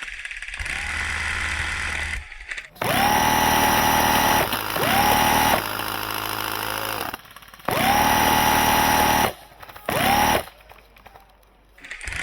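Airsoft minigun firing four bursts: each starts with its motor whining up to speed and then holding a steady pitch over the rapid rattle of shots.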